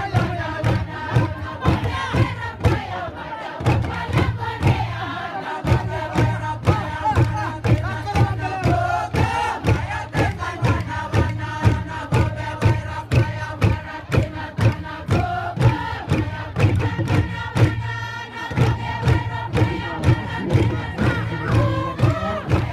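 Group of East New Britain traditional dancers chanting and singing together, voices loud and shouted, over a steady percussive beat of about three strikes a second.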